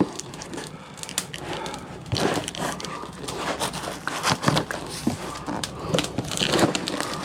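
A bag of binchotan charcoal rustling and crinkling while it is handled, with irregular knocks and clicks of the hard charcoal pieces.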